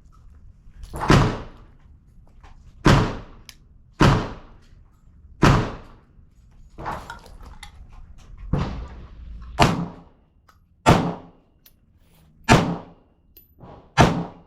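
Handgun shots fired at a steady pace on an outdoor range: about ten sharp cracks, each with a short echo, roughly one every second or so, two of them fainter.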